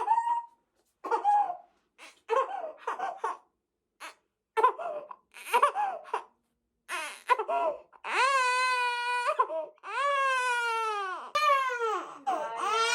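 A two-month-old baby making short, choppy vocal sounds, then breaking into several long wailing cries from about eight seconds in.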